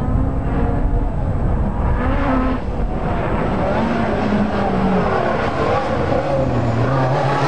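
Group B rally car engines running hard on a gravel stage. The engine note rises and falls in steps and drops to a lower pitch about six seconds in.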